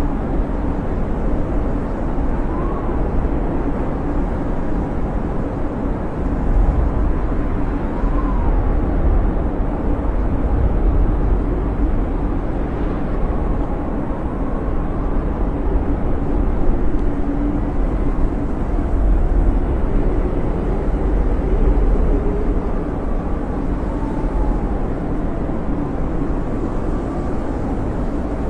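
Snowstorm wind blowing hard and steadily with a deep rumble, and faint whistles that rise and fall in pitch now and then.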